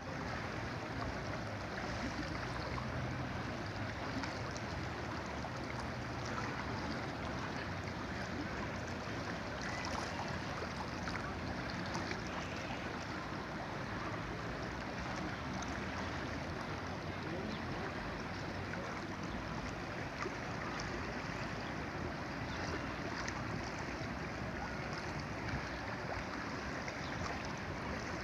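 River water flowing, a steady, even rushing with no breaks.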